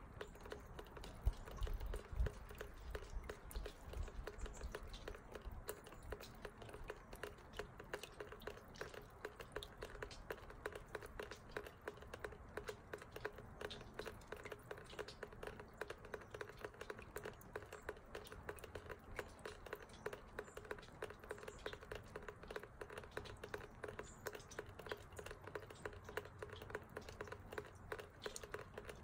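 Water trickling down a metal rain chain: a steady, rapid patter of drips and splashes off the links. A couple of louder knocks come about two seconds in.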